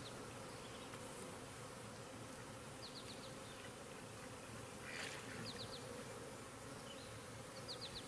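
Honey bees humming steadily around an opened hive, the colony's buzz from the exposed frames.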